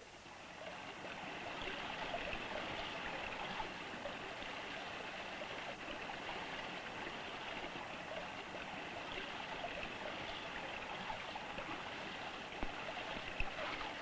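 Steady running water, like a stream, fading in over the first second or so.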